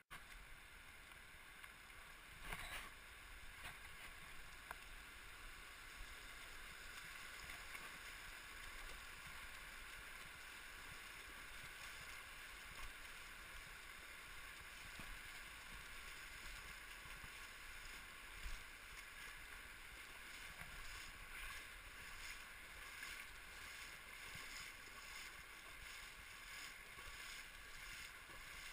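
Shallow river water running over cobbles, faint and muffled as heard through a camera's waterproof housing, with a couple of brief knocks.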